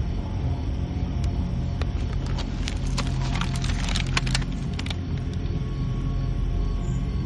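A low droning music bed with a flurry of sharp clicks and rattles from about a second in until nearly five seconds, densest around the third and fourth seconds, as a replica assault rifle is handled and swung up to aim.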